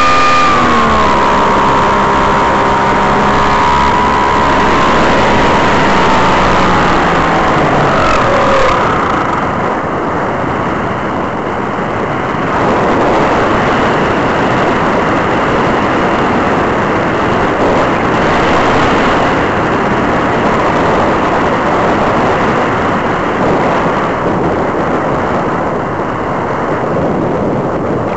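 A model powered glider's motor and propeller hum, sliding down in pitch over the first several seconds as it is throttled back and fading out. After that comes a steady rush of wind over the onboard microphone as the glider glides down on its landing approach.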